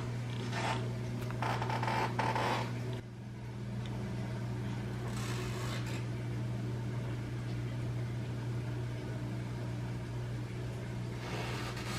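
1985 Casablanca Zephyr ceiling fan running with a steady low motor hum. Brief rustling and handling noises come over it in the first three seconds and again around five seconds in.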